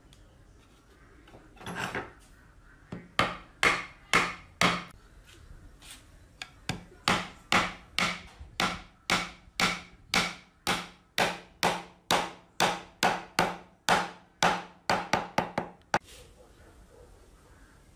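Hammer driving nails into a glued butt joint between two wooden boards: a run of sharp blows, about two a second, with one short pause, stopping a couple of seconds before the end. A brief scuff of wood comes first.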